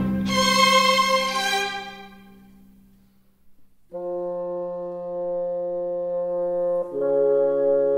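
Orchestral background music led by brass. A chord dies away over the first three seconds, then after a brief lull a new held chord comes in about four seconds in and shifts to another chord about a second before the end.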